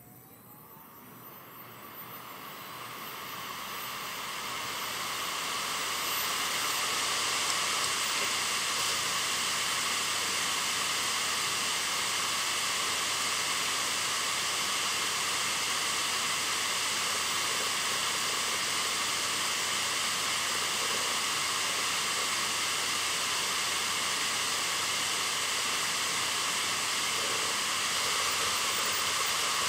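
Samsung Spinpoint F3 EcoGreen HD203WI 3.5-inch hard drive running with its cover off: the spindle motor spins the bare platters up with a faint rising whine, and the rush of air off the platters builds over about six seconds into a steady loud hiss.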